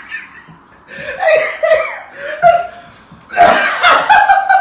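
People laughing in short bursts, then louder voices from about three seconds in.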